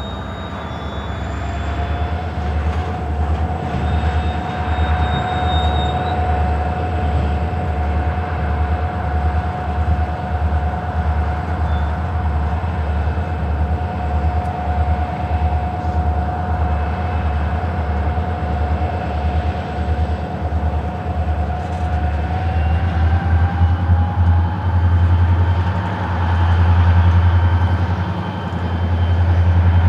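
Montana Rail Link diesel locomotives working under load to get a stopped freight train moving again. The engines give a deep, pulsing rumble, and a steady whine rises in pitch about a second in and again near the end as the power comes up, with the rumble growing louder.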